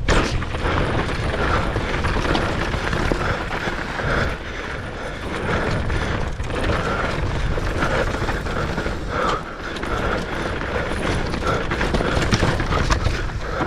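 Mountain bike running fast down a rough dirt trail: tyre noise on the dirt with an irregular clatter of chain and frame over the bumps, and heavy wind noise.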